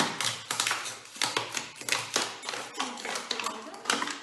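Scissors cutting through a thin plastic water bottle: a quick, irregular run of sharp snips and crackles from the plastic, several a second.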